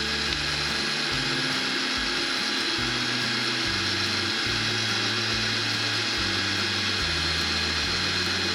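Small electric drill running steadily with a 1/2-inch masonry bit grinding into a wet ceramic pot, a continuous whine over a gritty hiss. The bit is slowly cutting a groove with water as lubricant.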